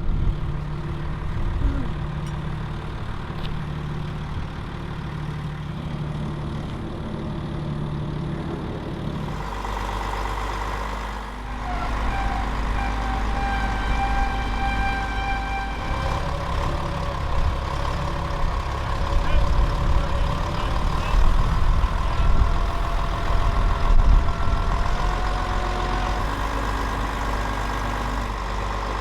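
Heavy vehicle engine running steadily. About nine seconds in it picks up, and a higher whine with shifting pitch joins it and runs on.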